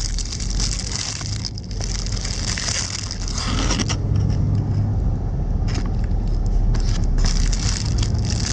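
Plastic wrapping on boxed bread rolls crinkling as hands handle it, in rustling spells through the first four seconds and again near the end, over the steady low rumble of a moving bus.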